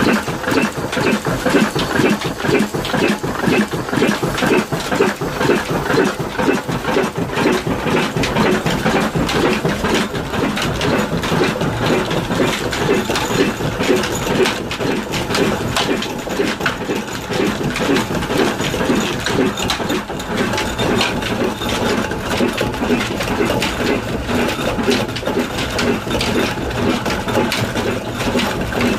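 Old diesel engine running steadily and driving belt-and-shaft machinery for a flour mill, with a loud, fast, even mechanical clatter.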